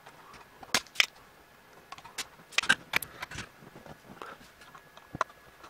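Scattered sharp clicks and taps of metal tools against a circuit board during desoldering of header pins: two about a second in, a quick cluster in the middle, and a single one near the end.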